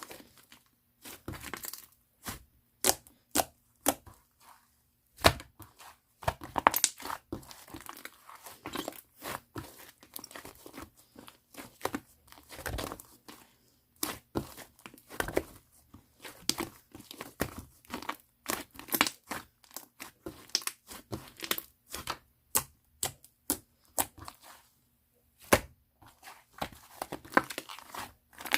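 Mixed slime being played with by hand: irregular sharp pops, clicks and crackles.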